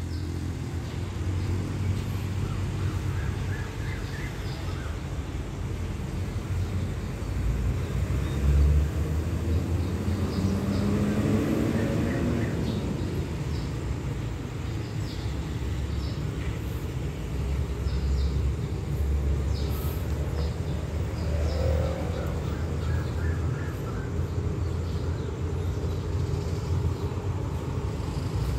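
Low, steady rumble of a diesel train approaching from a distance, with a brief rising tone about ten seconds in. Faint short chirps sound now and then over it.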